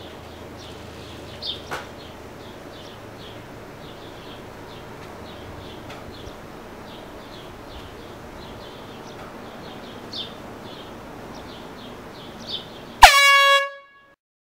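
Faint, short high chirps over a low background hiss. About 13 seconds in comes a single loud air horn blast about a second long: it starts with a quick drop in pitch, holds one note, and cuts off abruptly.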